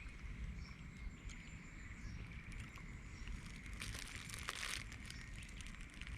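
Outdoor ambience: a steady low rumble with a faint steady high tone and scattered light crackles, and a louder rustling burst about four seconds in.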